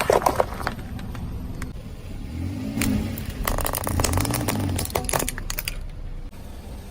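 A car running over objects and crushing them under its tyres: a burst of sharp cracking at the start, and a longer run of crackling about three and a half to five seconds in. The car's engine runs low underneath, rising and falling in pitch.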